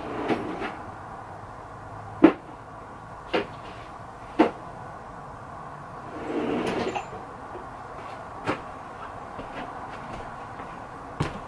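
Tools being rummaged through in the search for a socket: a series of sharp knocks and clicks a second or more apart, the loudest about two seconds in, with a short rustle about six seconds in.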